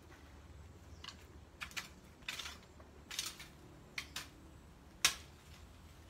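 Long-handled garden hoe chopping into and scraping the soil: a run of short, irregular strikes, the loudest about five seconds in.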